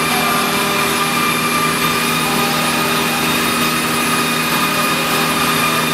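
CNC router spindle running with its bit cutting a groove into a wooden panel: a steady whine with a lower machine hum under the cutting noise.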